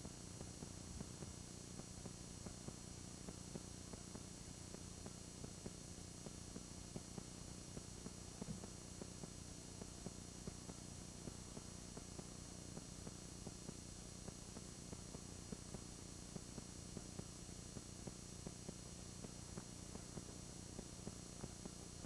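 Steady low electrical hum and hiss of an old analogue camcorder recording, with faint irregular clicks and crackles scattered throughout.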